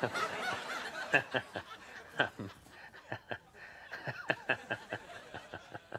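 A man laughing in a run of short chuckles, several a second.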